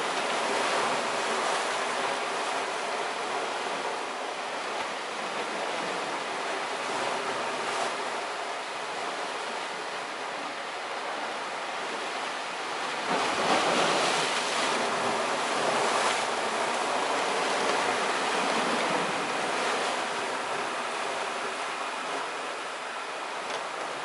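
Sea waves washing against a rocky shore: a steady rushing with a louder surge about halfway through.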